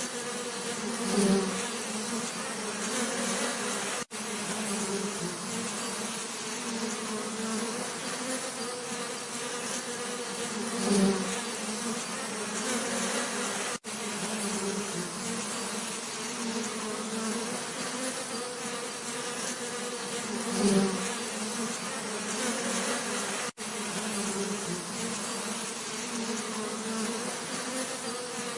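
Bees buzzing steadily in a low, continuous drone. About every ten seconds the buzz swells louder for a moment, and the sound briefly cuts out three times.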